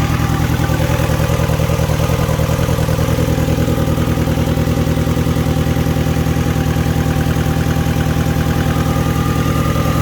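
Mini Cooper engine idling steadily on its first start after the cylinder heads were refitted, with an even, fast pulsing beat. It has a blowing exhaust leak but otherwise sounds spot on.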